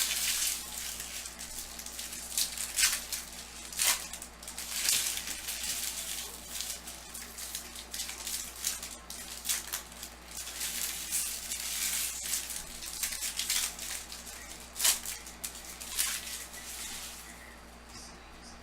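Crinkling, tearing and rustling as foil packs of baseball trading cards are opened and the cards handled, with repeated sharp crackles.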